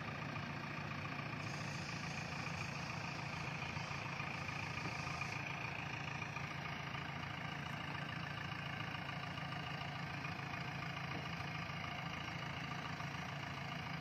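JCB backhoe loader's diesel engine running at a steady speed.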